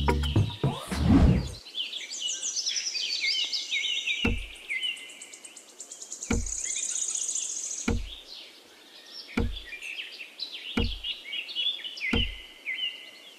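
Small birds chirping and twittering continuously, with a soft low thud about every second and a half from a few seconds in.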